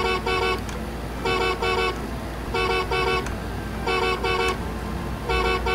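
Chicco toy car's electronic horn sounding a double beep-beep, repeated five times about every 1.3 seconds as its button is pressed.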